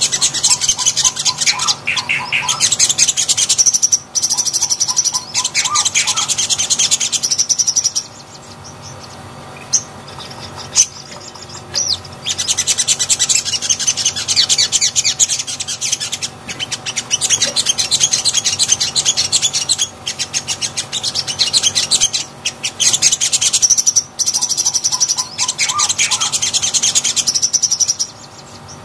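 A sunbird (sogon) singing in long bouts of rapid, high-pitched trills mixed with short lower chirps, broken by a pause of a few seconds after the first bout.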